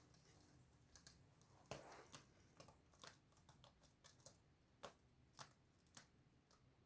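A kitten playing on its own, making faint, irregular light taps and clicks, with a short louder scuffle about two seconds in.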